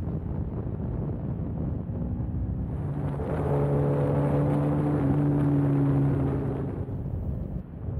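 A motorcycle engine running at steady revs over low wind rumble. Its hum grows louder about three seconds in, holds one pitch for a few seconds, then fades near the end.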